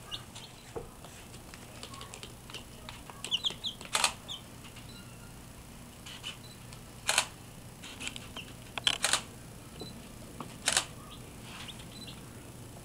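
Young chicks peeping, a few short high peeps now and then, with a quick run of them about three seconds in. Several sharp clicks or taps stand out above the peeps, about 4, 7, 9 and 11 seconds in.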